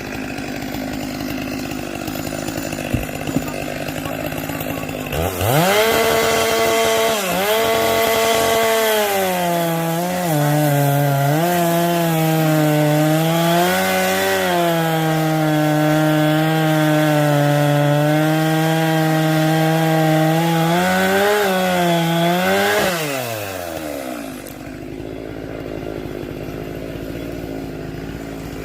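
Chainsaw idling, then throttled up about five seconds in and cutting wood, its pitch dipping and recovering repeatedly under load. It falls back to idle about five seconds before the end.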